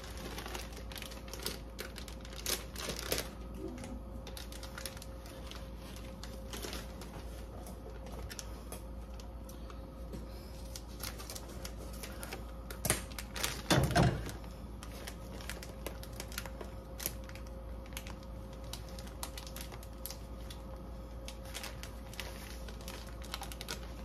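Tortilla and filling crackling lightly in a hot stainless steel skillet: soft irregular ticks throughout, over a faint steady hum. A louder burst of noise comes about 14 seconds in.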